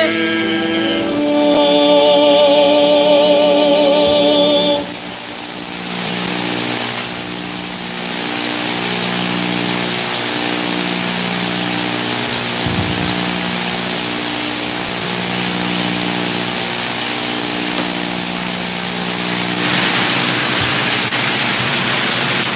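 A sung hymn ends on a held note with vibrato about five seconds in. Then a steady hiss remains, with soft instrumental notes repeating low underneath about every two seconds.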